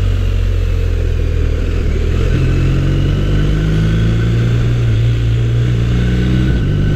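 BMW R1250RS boxer-twin engine running under way. Its note steps up a little about two seconds in, holds, and shifts back down shortly before the end.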